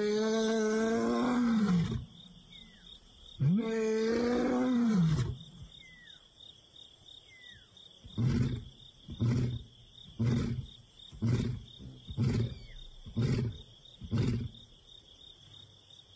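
Young male lion roaring: two long calls, each rising, holding and falling for about two seconds, then seven short grunts about a second apart. It is a contact call to a missing companion. Insects trill steadily underneath.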